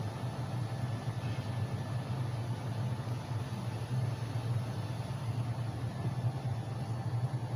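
A steady low machine hum, unchanging throughout.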